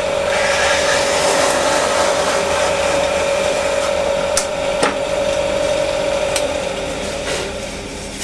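Flott pillar drill running with a steady hum while its bit cuts into a wooden board, with a few sharp clicks around the middle. The hum and cutting noise fade over the last second or so.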